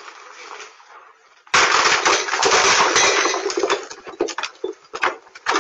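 A sudden loud crash about a second and a half in, followed by several seconds of continued crunching and scraping noise, picked up by a doorbell camera's microphone: a vehicle ploughing through a yard.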